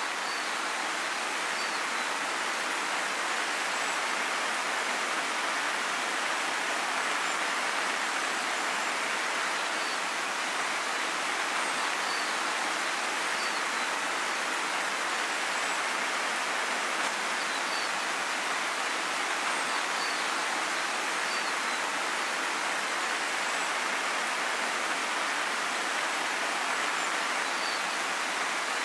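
River water running with a steady, even rush, with faint short high chirps here and there.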